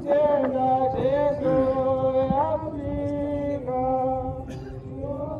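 A man singing a slow, chant-like hymn line alone, holding long notes and sliding between them.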